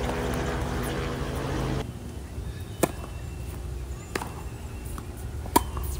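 A steady low engine-like hum stops abruptly about two seconds in. Then come three sharp pops of a tennis ball struck by rackets, about a second and a half apart, the last the loudest.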